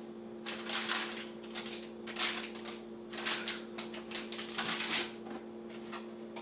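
Clattering and knocking of household items being moved around and sorted in a low cabinet: irregular runs of sharp clicks and knocks for about four and a half seconds. A steady low hum runs underneath.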